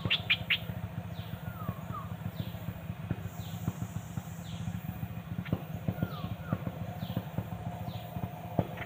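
Songbird chirping: short, quickly falling notes about once a second, with a quick run of louder chirps at the start and a few lower curved whistles. A steady low drone runs underneath.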